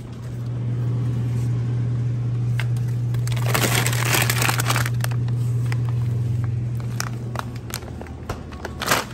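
Plastic bag of frozen french fries crinkling as it is pulled off a freezer shelf, over a steady low hum. A few sharp clicks come near the end.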